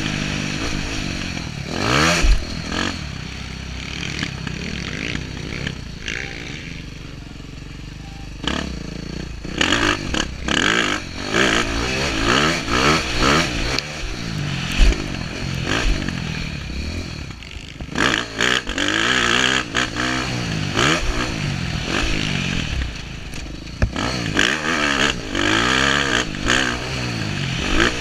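Dirt bike engine on a motocross track revving hard and shifting up, its pitch climbing and dropping again and again, with a quieter stretch about four to eight seconds in where the throttle is eased off. Short knocks and clatter sound throughout as the bike runs over the rough ground.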